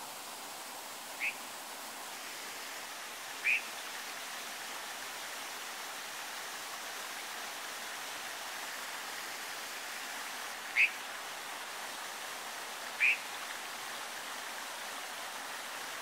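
A stream running steadily over stones, with four short, sharp bird calls standing out above it, in two pairs about two seconds apart.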